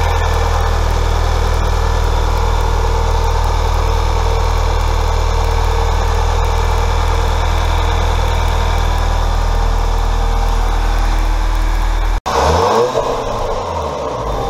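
2010 VW GTI's 2.0 TSI turbocharged four-cylinder engine idling steadily. About twelve seconds in the sound breaks off sharply, then the engine revs up and back down briefly.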